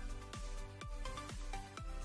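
Background music with a steady kick-drum beat, about two beats a second, under sustained chords.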